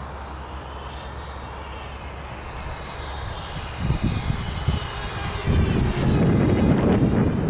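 Walkera F210 racing quadcopter flying, its brushless motors whining and sweeping up and down in pitch. About four seconds in a low rushing noise comes in, and it grows much louder from about five and a half seconds.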